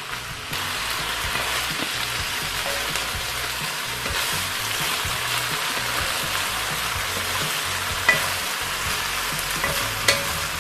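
Stir-fry sizzling in a hot pan while a spatula turns it, at the last stage of cooking, as lemon basil is stirred in to wilt. The sizzle grows louder about half a second in, and the spatula clicks sharply against the pan a couple of times near the end.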